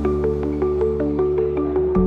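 Background music: steady synth chords over a held bass with quick mallet-like notes, about four or five a second; the bass shifts at the end.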